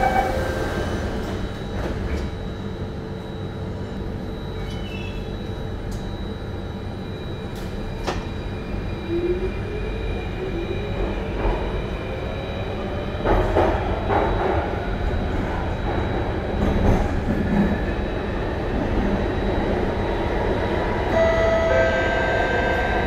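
SMRT Circle Line C830 metro train running, heard from inside the car: a steady rumble of wheels on track, with a faint whine rising in pitch from about nine to fourteen seconds in.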